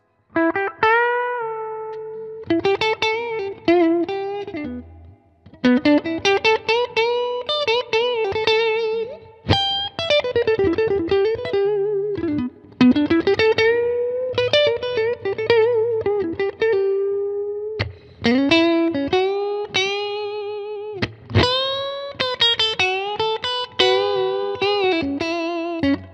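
Electric guitar, a goldtop single-cutaway, played through a handwired Lucas Miles Souldigger valve amp miked up close. It plays a single-note lead in phrases, with string bends and vibrato on the held notes, in a clean tone with slight breakup. There is a short pause about five seconds in.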